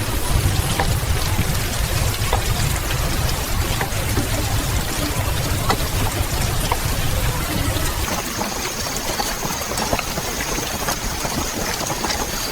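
Steady heavy rain, an even hiss with scattered sharp drop ticks over a deep low rumble. About two-thirds of the way through, a faint thin high tone comes in and holds.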